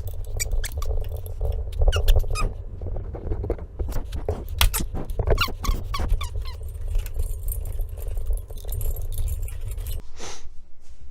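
1964 Buick LeSabre V8 running, with a string of short high squeaks and chirps over the rumble; the engine cuts off about ten seconds in. The owner hopes the terrible noise was the drive belts.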